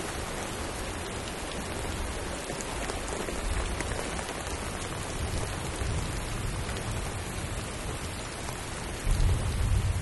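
Steady rain falling, an even hiss of drops across the grassland. A low rumble swells near the end.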